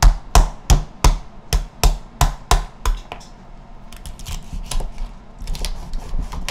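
Chef's knife chopping through a swimming crab's shell and hitting a wooden cutting board: about three sharp chops a second for the first three seconds, then lighter, scattered knife taps.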